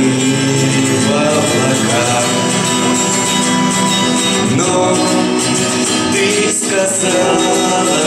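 A small live band playing a song: a young male voice singing over strummed acoustic guitars and an electric keyboard, amplified through a PA.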